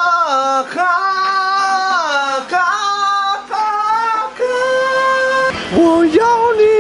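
A woman singing a slow melody in long held, high notes that slide down from one pitch to the next, with short breaths between phrases.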